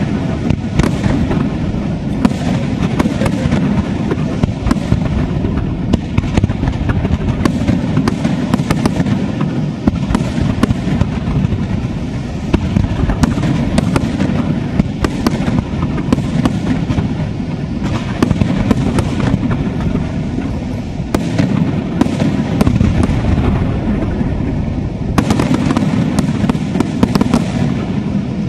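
Large aerial fireworks display firing a dense, unbroken barrage: many sharp shell bursts and crackling reports a second over a continuous low din, a little louder for a few seconds near the end.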